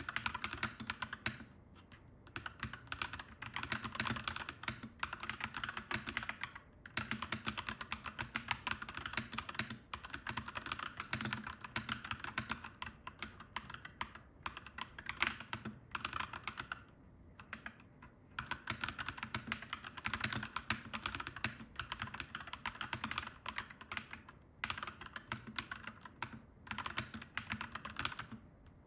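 Typing on a clacky mechanical keyboard: quick, continuous runs of keystrokes broken by a few short pauses.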